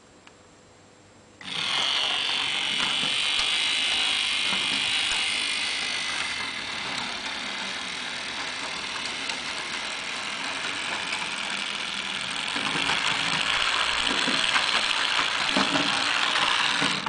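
Rivarossi model streetcar's small electric motor and gear train whirring with a fine rapid ticking as the tram runs along the track. It starts abruptly about a second and a half in, dips a little in the middle, and cuts off suddenly near the end.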